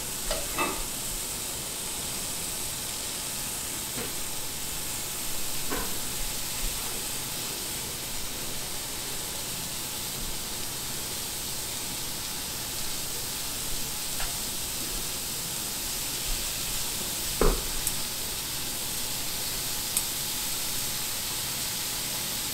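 Shrimp and thin slices of raw beef sizzling on a hot electric griddle greased with pork-belly fat, a steady hiss. A few brief clicks come from metal tongs working on the griddle.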